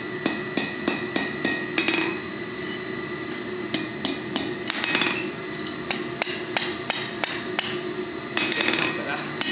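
Hand hammer striking a hot steel bar on an anvil in quick runs of blows, about four a second, with a pause of a second or two about two seconds in. A steady hum runs underneath.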